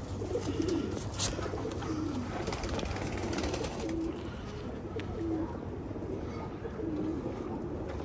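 Domestic pigeons cooing: repeated low coos from several birds, overlapping, with one sharp click about a second in.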